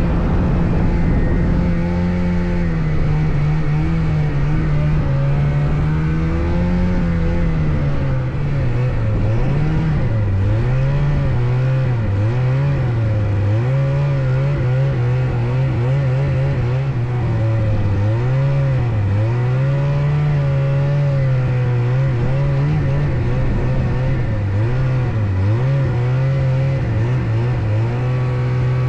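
Ski-Doo Skandic snowmobile engine running under way, its pitch steady at first, then rising and falling again and again with the throttle.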